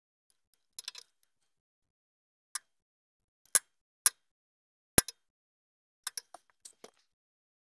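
Metal clinks and taps of a filter wrench being fitted around a spin-on hydrostatic transmission filter: a handful of separate sharp clicks with silence between them, the loudest about five seconds in and a quick cluster of lighter ones near the end.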